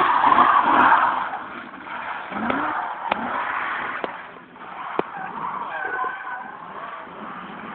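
BMW E36 drifting, its engine revving and its tyres squealing and skidding, loudest in the first second. A few sharp knocks come in the middle.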